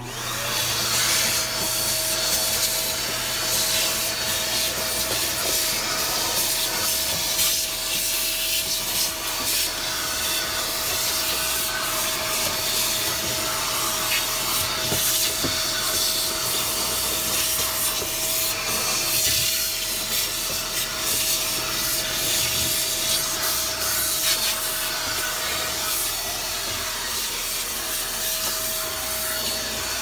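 JK-2 multi-function electric vacuum cleaner switched on and running steadily with a constant whine and rushing suction, its narrow crevice tip rubbing along the inside of a washing machine tub.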